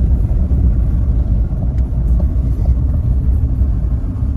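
Diesel pickup truck driving on a dirt road, heard from inside the cab: a steady low rumble of engine and tyre noise.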